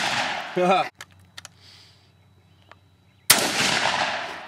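The fading tail of a gunshot, a few faint clicks, then a single loud 12-gauge shotgun blast about three seconds in that echoes as it dies away.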